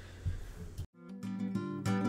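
Faint room tone, then after a sudden cut about a second in, strummed acoustic guitar music starts.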